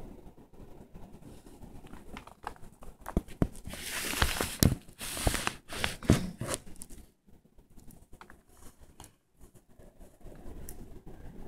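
Crunching and crackling of a praying mantis chewing through the hard shell of a Dubia roach. Irregular sharp clicks are densest and loudest in the middle seconds and grow sparser near the end.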